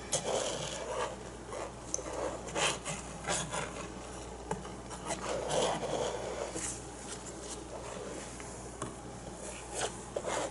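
Irregular scraping and rubbing strokes of a tool spreading wet acrylic paint across a stretched canvas.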